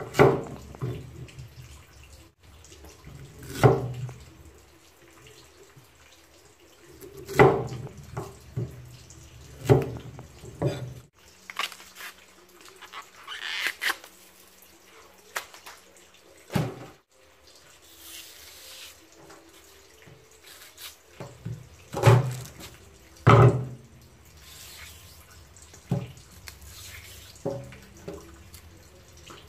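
Kitchen knife chopping taro corm on a wooden chopping board: sharp knocks a few seconds apart. Later there is softer rustling and tearing as fresh taro stalks are peeled by hand, broken by a few more sharp knocks.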